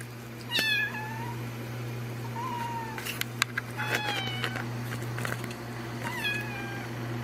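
A fold-eared tabby kitten meowing: about four short, high meows, each falling in pitch, with the clearest about four seconds in. A steady low hum runs underneath.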